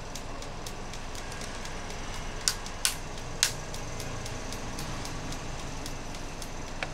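Three sharp clicks in quick succession partway through, from the tablet's parts being handled during disassembly, over steady background noise with faint, fast, regular ticking.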